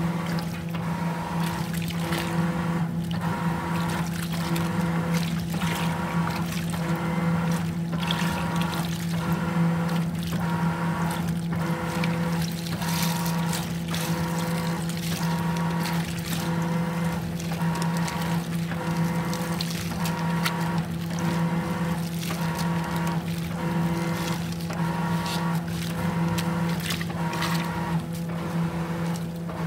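Top-loading washing machine agitating a sudsy load: a steady motor hum under water sloshing against the drum in a regular rhythm, a little more than once a second, as the agitator swings back and forth.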